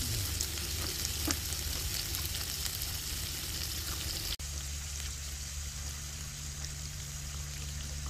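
Beef rib-finger meat and garlic cloves sizzling on an electric tabletop grill plate, a steady crackle over a low hum. The sound drops out for an instant about four seconds in, then carries on a little quieter.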